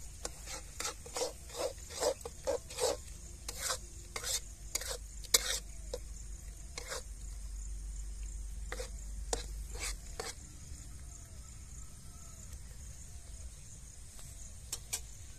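Ground masala paste frying in mustard oil in a kadhai, sizzling while it is stirred and scraped round the pan in quick strokes: the bhuna stage, frying the masala until it turns red. The strokes come about every half second for the first several seconds, then thin out to a few.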